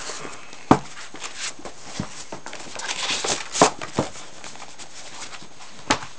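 A large hardback book being handled and its pages leafed through: paper rustling, with several sharp knocks and taps of the book and hands against it.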